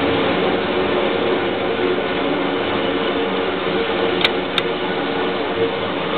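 Electric target carrier on an indoor range lane, its motor running steadily as it pulls a paper target back along the overhead track. Two sharp clicks come about four seconds in.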